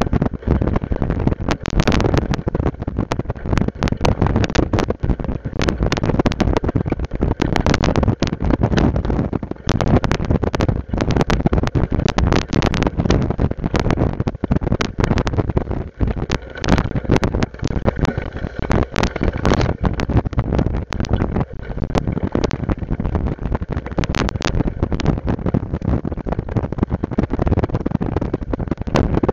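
Ride-mounted camera jolting and rattling over a rough, overgrown dirt trail: a continuous rumble broken by constant irregular knocks and clatter, with tall grass and branches brushing past close by.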